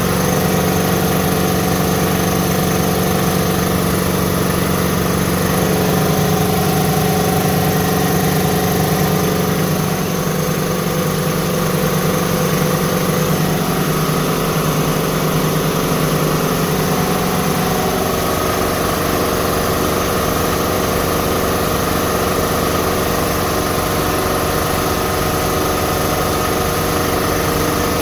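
Two Ingersoll Rand piston air compressors running together, their pumps building pressure in the tanks. A loud, steady mechanical hum, whose tone shifts slightly about eighteen seconds in.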